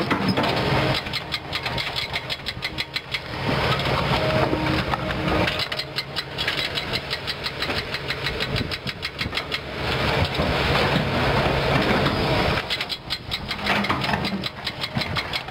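Diesel engine of a Kobelco SK200 hydraulic excavator running under working load, its level rising and falling, with stretches of a fast, even pulsing beat.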